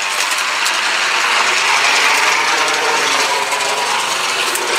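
Gas-powered Legend Force walk-behind string trimmer running as it is pushed through dirt and weeds: a steady whirring hiss that swells slightly midway.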